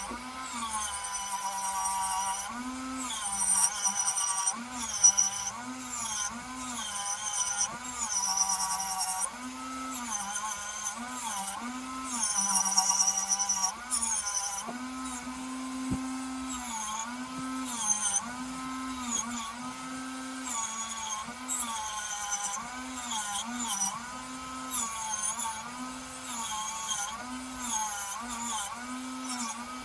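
Small handheld rotary tool running at high speed, its whine dipping and recovering again and again as it is pressed onto the work, with bursts of high-pitched scraping. It is being used on small diecast toy-car wheel hubs.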